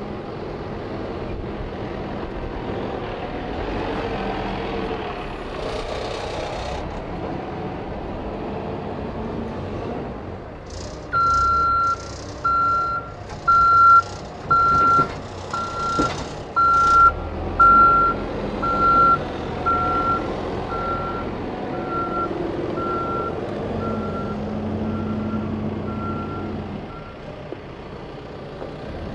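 Caterpillar backhoe loader's diesel engine running steadily. About eleven seconds in, its reversing alarm starts beeping about once a second and goes on for some fifteen seconds as the machine backs up, then stops.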